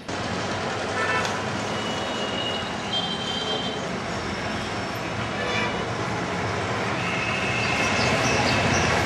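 Steady town traffic noise with short, high horn toots now and then.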